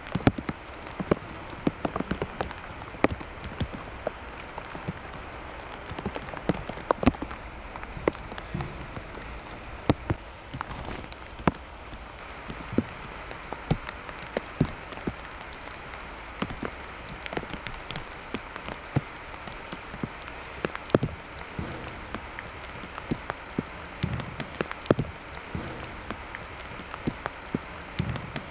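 Steady heavy rain falling, with many irregular sharp taps and knocks.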